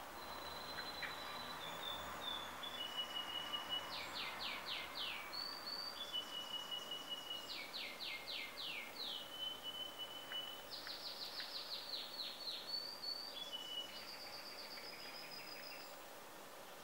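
A songbird singing repeated phrases: clear whistled notes held at different pitches, broken by quick runs of four or five sharply falling notes.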